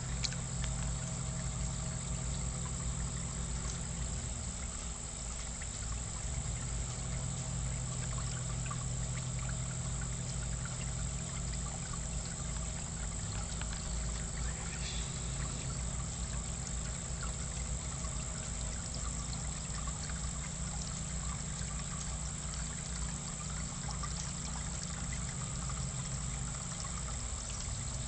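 Steady running and trickling water in a koi pond, with a low steady hum underneath.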